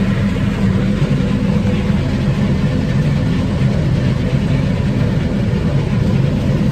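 Vaporetto (Venetian water bus) engine running steadily, a loud low rumble heard from on board.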